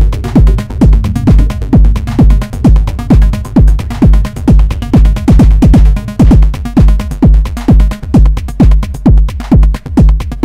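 Live techno played on a Eurorack modular synthesizer: a deep kick drum with a fast downward pitch drop on every beat, about two a second, over a repeating synth bass line and ticking hi-hat-like percussion.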